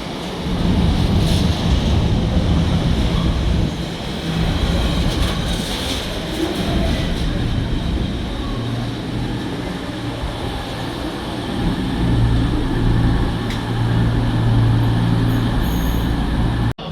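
Train running: a steady low rumble and hum, with a deeper drone growing stronger about twelve seconds in; the sound cuts off abruptly just before the end.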